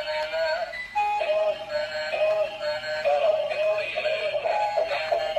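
Background music with a singing voice holding long, wavering notes.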